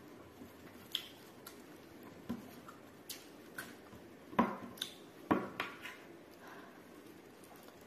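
Eating by hand from a plastic plate: fingers scraping up rice and picking up a piece of pork, with scattered sharp clicks and taps against the plate, the loudest about four and a half and five and a half seconds in.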